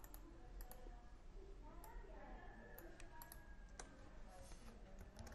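Faint, scattered clicks of a computer keyboard being typed on.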